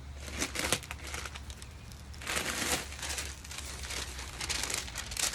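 Crinkling and rustling in a few short bursts, the longest about two seconds in, over a steady low hum.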